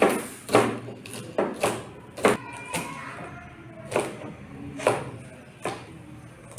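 Chef's knife chopping on a plastic cutting board: about nine sharp knocks of the blade striking the board, at an uneven pace, a few in quick pairs.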